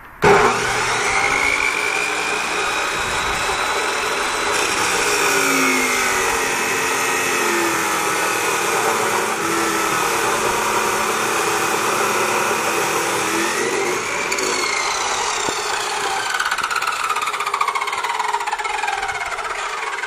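Electric abrasive chop saw with a metal-cutting blade starting abruptly and cutting through half-inch round steel stock, running loud and steady with a wavering pitch. The pitch falls over the last few seconds.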